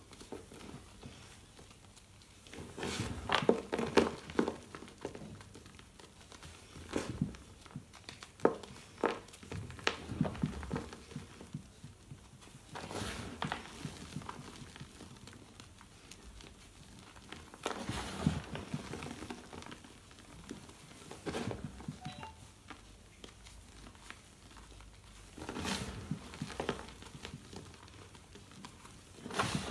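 Hands crushing and crumbling lumps of reformed gym chalk: bursts of dry crunching, each lasting a second or two, every few seconds, with quieter stretches of crumbling between.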